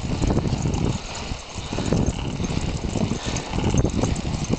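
Inline skate wheels rolling over a concrete path, a steady rumble mixed with wind buffeting the microphone. The rumble dips briefly about a second and a half in.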